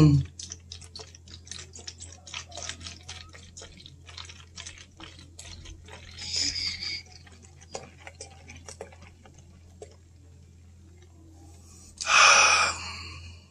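Carbonated Four Loko malt drink poured from a 40 oz bottle into a large glass: liquid splashing and fizzing with many small bubbly ticks, and a louder rush about a second before the end. A steady low hum runs underneath.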